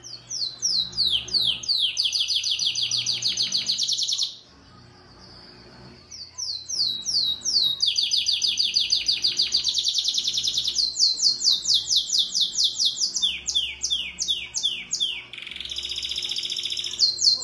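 Yellow domestic canary singing in its cage: long runs of fast, high, falling notes repeated about ten a second. The song breaks off for about two seconds near the start, and there is a rougher, buzzing phrase near the end.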